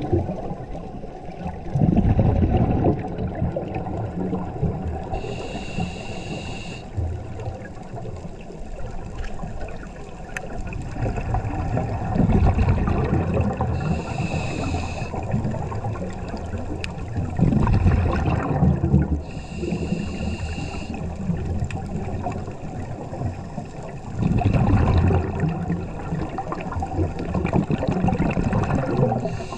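Scuba regulator breathing heard underwater: slow breaths about every six seconds, each a hissing inhale through the regulator with a thin whistle, alternating with a low rumbling gush of exhaled bubbles.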